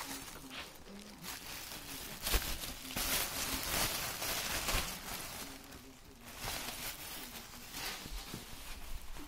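Thin plastic shopping bag rustling and crinkling as it is handled with a cat moving inside it, with a few sharp knocks.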